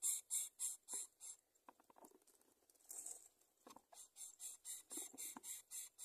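Greater coucal nestlings hissing in a fast, even rhythm of about four short hisses a second, the begging sound of chicks being fed at the nest. The hissing breaks off for about two seconds, where a few soft rustles and clicks of the nest are heard, then starts again.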